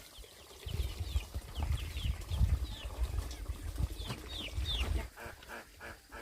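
Small birds chirping in short falling chirps, over a low rumbling on the microphone. About five seconds in, the rumble stops and a quick run of rapid pulses follows.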